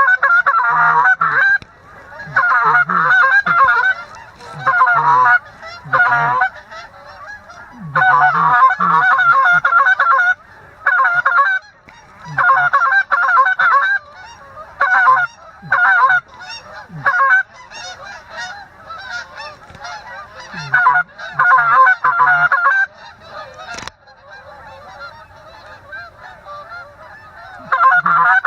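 Canada goose calling on a handheld goose call: loud bursts of rapid honks and clucks every second or two, with short pauses between series. About 24 seconds in there is a single sharp click.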